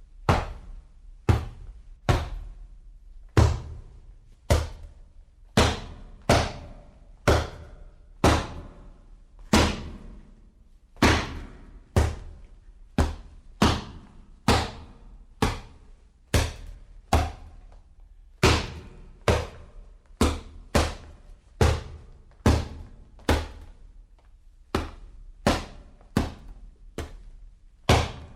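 Boxing punch sound effects: a long series of single punches landing, one after another about every two-thirds of a second, each a sharp hit with a short fading tail.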